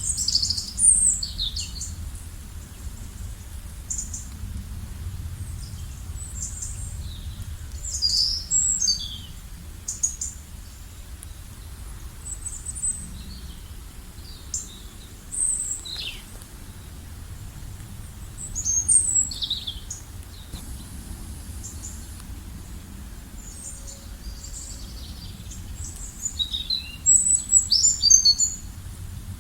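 Wild birds chirping in short, high calls that come in scattered flurries, the busiest near the end, over a steady low rumble.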